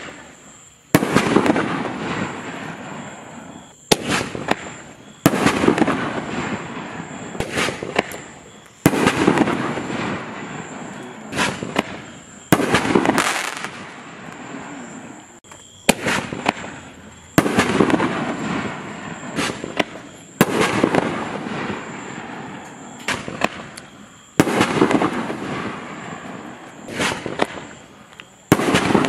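Reloadable 1.75-inch canister firework shells fired one after another from a mortar tube, about eight in all. Each shell gives a sharp launch bang and then a louder break about a second later, followed by a few seconds of fading crackle before the next one goes.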